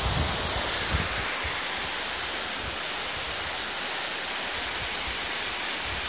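Zengoro Falls, a waterfall with a 30-metre drop, pouring into its pool: a steady rushing noise that is strongest in the hiss.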